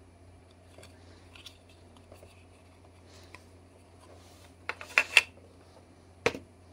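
Styrene plastic model parts being handled: faint scratching and ticking as the hood is turned in the fingers, then a quick cluster of sharp plastic clacks about five seconds in as it goes down on the wooden bench, and one more clack about a second later.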